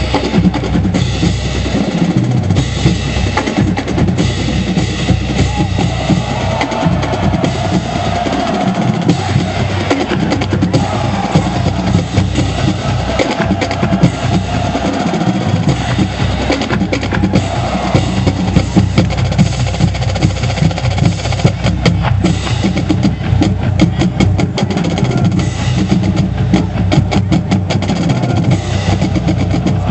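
Marching band playing, dominated by its drumline: rapid snare drum rolls over bass drums.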